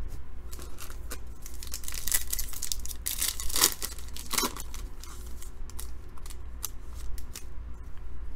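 The foil wrapper of a Topps Big League baseball card pack being torn open, crinkling and ripping loudest from about two to four and a half seconds in. Fainter rustling of the cards follows.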